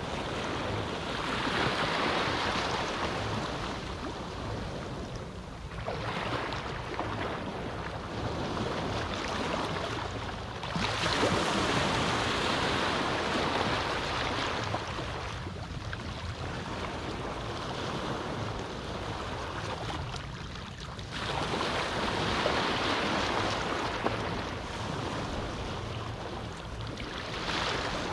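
Gentle Caribbean sea waves breaking and washing up on a beach in calm conditions. The wash swells and fades about every five seconds, and the strongest comes about eleven seconds in.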